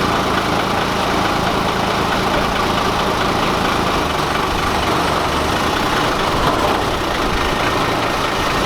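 Toyota 2H 4.0-litre inline-six diesel of a 1980 HJ47 Land Cruiser, naturally aspirated, idling steadily.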